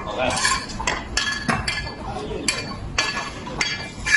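Irregular clinking and clattering of hard objects, a dozen or so sharp knocks, several of them ringing briefly.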